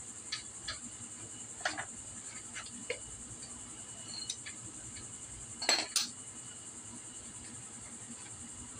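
Metal hand tools and parts clinking now and then, with two louder clinks close together about six seconds in, over a steady high chirring of crickets.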